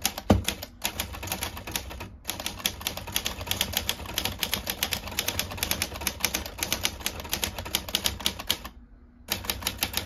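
An Everest K2 manual typewriter being typed on at a brisk, steady pace, its typebars clacking rapidly against the platen, with a brief pause near the end before the typing resumes.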